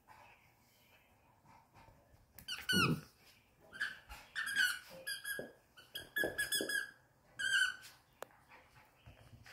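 Squeaker inside a plush elephant dog toy squeaking as a dog bites and chews it, in about six short bursts of rapid squeaks.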